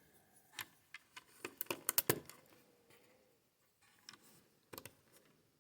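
Plastic LEGO bricks clicking and clattering as they are handled and sorted through, with a quick run of clicks about two seconds in and a few more near the end.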